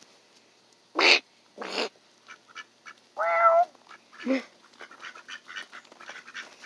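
Mallard ducks quacking, several loud separate calls in the first half, while footsteps crunch on gravel.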